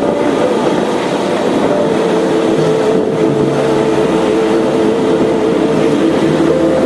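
Boat engine running steadily, a continuous drone with a slightly wavering hum over a rushing wash of noise.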